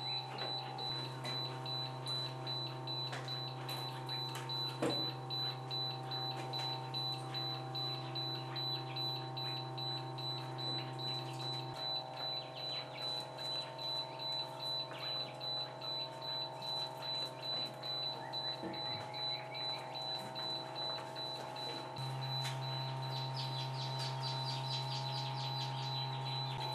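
Steady electric hum of an egg incubator and brooder cabinets, with a thin high whine running through it. Chukar partridge chicks cheep faintly, with a few short rising peeps.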